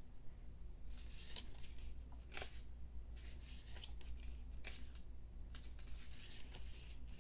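Pages of an album photo book being turned by hand: several short paper swishes a second or so apart.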